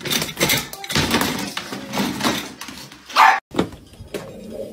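Rattling and scratching at a plastic pet carrier's wire door as a dog and a hand work at it, with a short loud cry about three seconds in. Near the end, after a sudden break, a low steady sound begins.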